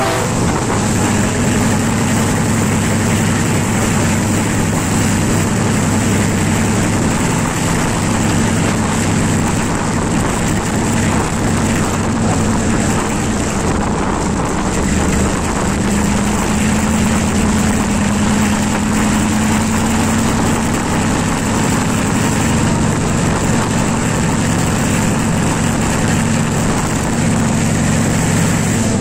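Class M2c diesel-electric locomotive under way, its diesel engine running with a steady low drone over the constant rumble of wheels on rail. One tone in the engine note grows louder for a few seconds past the middle.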